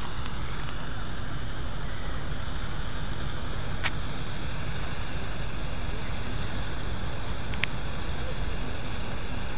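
Steady low engine rumble, with a sharp click about four seconds in and another near the end.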